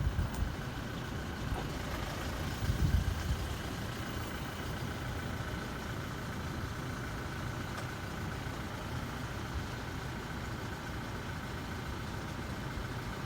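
A motor running steadily at idle with a low rumble and a faint steady whine, swelling briefly about two to three seconds in.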